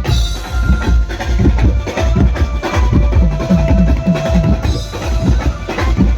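Drums and percussion playing a busy, fast rhythm with a deep bass drum under it, a band at its sound check.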